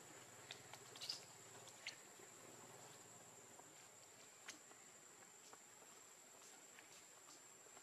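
Near silence: faint background with a thin steady high whine and a few soft scattered clicks.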